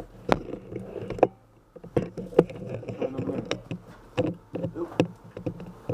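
Irregular clicks and knocks with rustling in between, close to the microphone.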